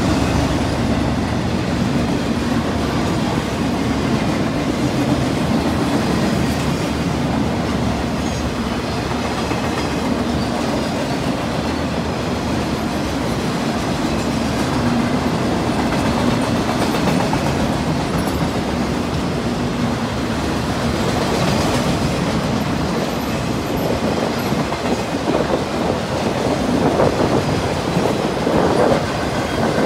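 Loaded flatcars of a freight train rolling past close by: a steady rumble and clatter of steel wheels on the rails, with a run of louder clatter near the end.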